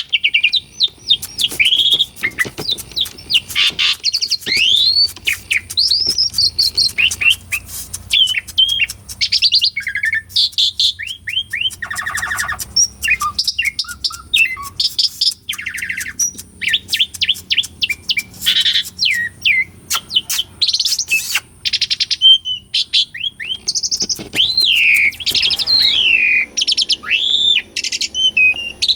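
Asian pied starling (jalak suren) singing steadily: a varied, unbroken stream of slurred rising and falling whistles mixed with fast rattling chatter and a few harsh, grating notes.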